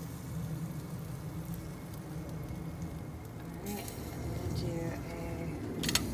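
Faint sizzling with scattered crackles from halved peaches, nectarines and apricots cooking in brown sugar syrup on a charcoal kamado grill grate, over a steady low rumble. A sharp click comes near the end.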